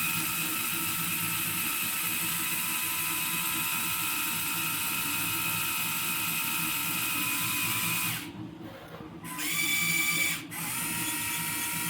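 LEGO Technic Liebherr crane's electric motors and plastic gear train whining steadily as the winches pay out the hoist threads. The motors stop about eight seconds in, run again briefly at a higher pitch, then pause and start once more near the end.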